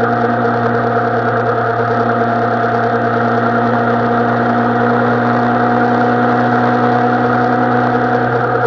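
Suzuki Bandit 650N's carbureted inline-four engine running at a steady, unchanging speed, with no revving.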